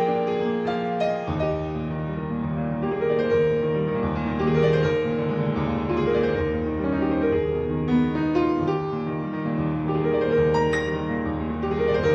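Piano music: slow, sustained chords over held bass notes.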